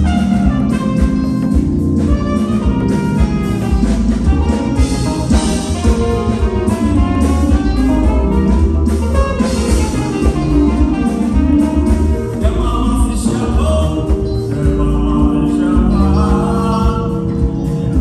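A band playing music, with a heavy steady bass under a melody line that bends in pitch.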